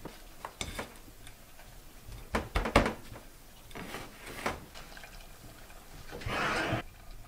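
Kitchen dishes clattering and knocking while pike fillets are dredged in a cornmeal and flour coating on a plate: a few sharp knocks, the loudest about two and a half seconds in, and a short rough rustling noise near the end.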